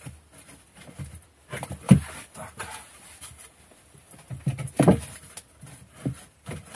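Wooden boards knocking against a plank floor as they are laid and shifted into place: a handful of irregular knocks and clatters, the loudest about two seconds in and again near five seconds.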